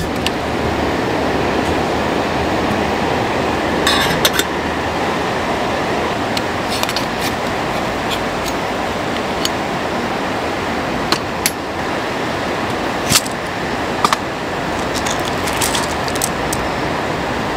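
Steady hiss of a canister gas stove burning under a kettle, with scattered metallic and glassy clinks as a hand coffee grinder and a glass jar of coffee beans are picked up and opened.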